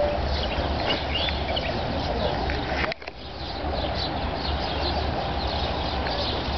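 Many small birds chirping over a steady background hum, with a brief drop in sound about three seconds in.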